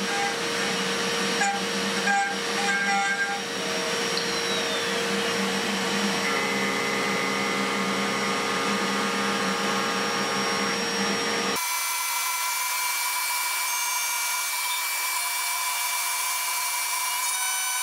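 Home-made CNC milling machine cutting steel: the spindle runs with a steady whine while the cutters work the part, first a chamfer cutter, then an end mill. About twelve seconds in the sound changes abruptly to a thinner, higher-pitched cutting noise with no low end.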